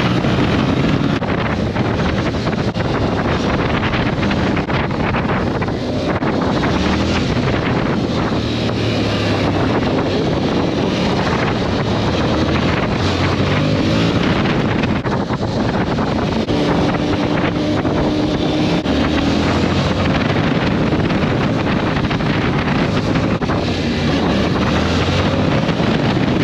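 Yamaha Tracer 7's 689 cc parallel-twin engine under way, its pitch climbing several times as it accelerates through the gears and dropping back as it eases off, with steady wind rushing over the microphone.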